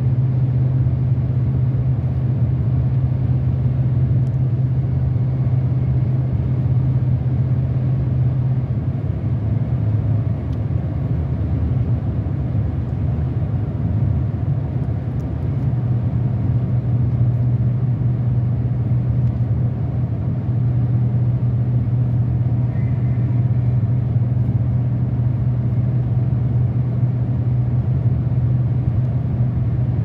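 Steady road and engine noise of a car cruising on a highway, heard from inside the cabin: a low drone over tyre rumble. The drone weakens for a few seconds about ten seconds in, then returns.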